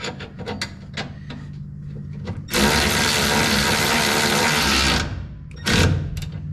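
Impact wrench hammering a new cab-mount bolt tight for about two and a half seconds, then one short final burst, over a steady low hum. A few light clicks come before it.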